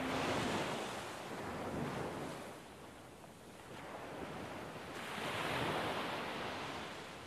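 Ocean surf washing in, a hiss of waves that swells and fades in slow surges, with some wind.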